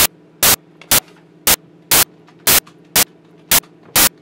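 Sharp loud pops repeating about twice a second at a fairly even pace, over a low steady hum.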